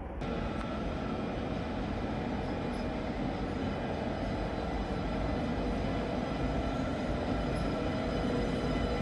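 Train moving through a station: a continuous rumble with several faint steady whining tones, growing slightly louder towards the end.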